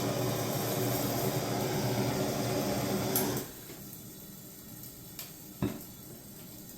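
Soldering torch flame running steadily on a copper pipe joint, cut off about three and a half seconds in once the solder has flowed. A small click and a short knock follow.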